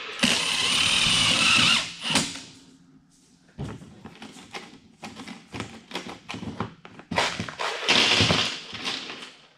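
Cordless drill/driver running a sheet-metal screw into a galvanized duct elbow, a loud whine for about a second and a half. It is followed by a sharp click and a series of small clicks and knocks as screws and parts are handled, with another loud burst near the end.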